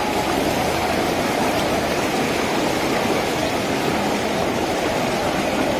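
Floodwater rushing through a street: a steady, even rush of flowing water.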